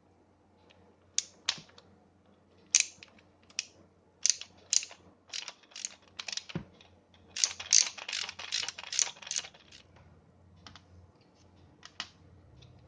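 Sharp clicks and taps of small metal hand tools and wrench parts being handled while a ratchet wrench is taken apart with a Torx screwdriver. About seven seconds in there is a dense run of rapid clicks lasting about two seconds.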